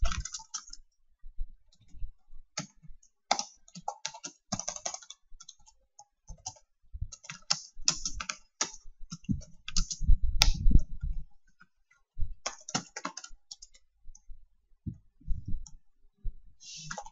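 Computer keyboard typing: irregular runs of keystrokes broken by short pauses. A low thump comes about ten seconds in.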